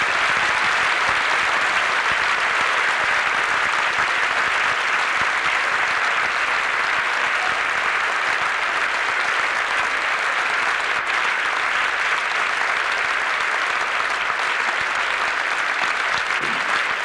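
Audience applauding steadily at a curtain call after a dance performance.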